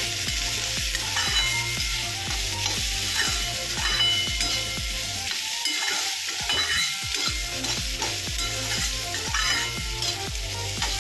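A flat metal spatula scrapes and turns raw banana pieces in a metal kadai, with repeated scraping strokes over a steady sizzle of frying in oil.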